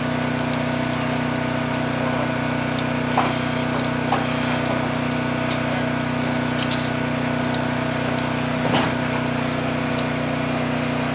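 A small engine running steadily at a constant speed, with a few light knocks about 3, 4, 7 and 9 seconds in.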